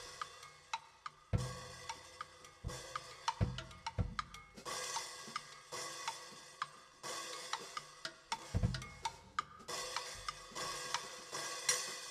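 A drum kit played freely: cymbal washes and crashes, hi-hat, snare and tom hits, and heavy bass-drum thumps, mixed with short pitched notes struck with sticks on a set of bars.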